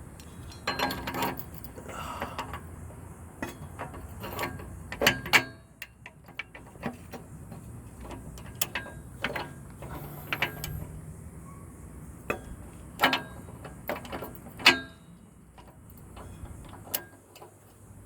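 Irregular metallic clicks and clanks of a hand tool working as a new downstream O2 sensor is threaded into the exhaust and tightened. The clicks come singly and in short clusters, a second or more apart.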